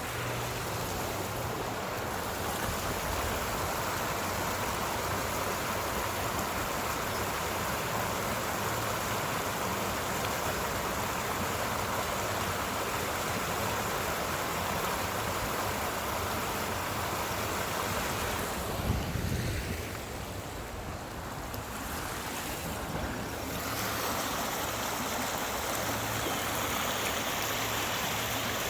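Small waterfall rushing steadily. A thump comes about nineteen seconds in, and the water sounds a little quieter for a few seconds after it.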